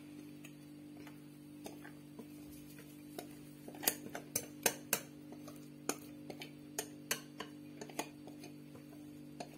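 A utensil tapping and scraping against a mixing bowl while cake batter is poured out into a tart pan: sharp, irregular clicks a few times a second, starting about four seconds in, over a steady low hum.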